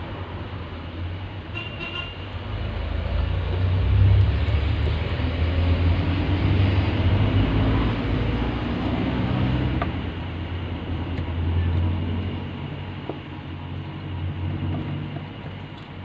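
A motor vehicle's engine running as it passes, a low rumble that swells to its loudest about four seconds in and fades after about twelve seconds.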